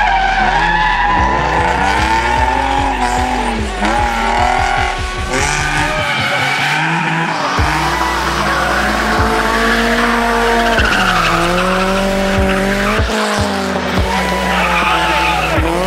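Drift cars' engines revving up and down hard while their tyres squeal and scrub through sliding turns.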